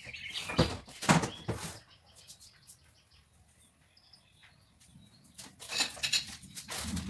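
Scattered knocks and clicks of kitchen containers being handled on a counter: one cluster in the first couple of seconds, then a quiet stretch, then another cluster about five and a half seconds in. A low hum starts just before the end.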